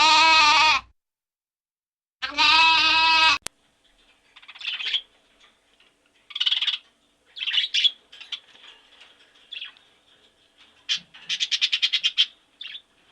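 Two loud, wavering bleats from a sheep or goat, each about a second long. Quieter short high bird chirps in scattered bursts follow, with a quick run of chirps near the end.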